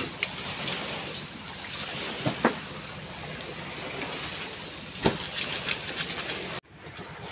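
Sea water sloshing and splashing against the hulls of wooden outrigger boats, with a few sharp knocks of wood.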